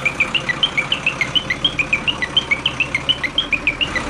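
Truck engine sound effect, starting suddenly and running with a fast pulsing beat, with a rapid string of high chirps over it throughout.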